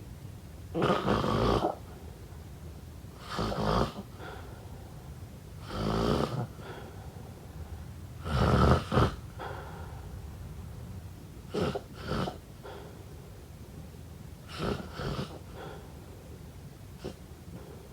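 A sleeper snoring, each breath a separate rasping snore. The first four snores come about every two and a half seconds and are the loudest; the later ones are shorter and fainter.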